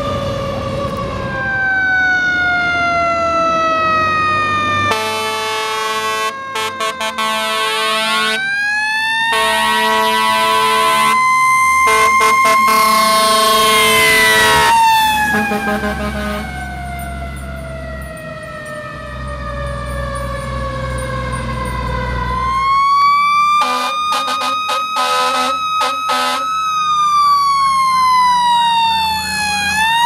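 Fire engine siren wailing, slowly winding up and coasting back down in pitch over several seconds at a time. Two runs of short air-horn toots break in, one early and one toward the end.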